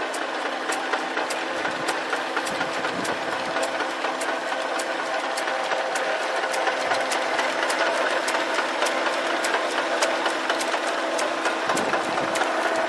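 AV Carroll Machine metal lathe running under power from its single-phase electric motor through the belt drive and gearbox: a steady mechanical hum with a light click repeating a little over twice a second.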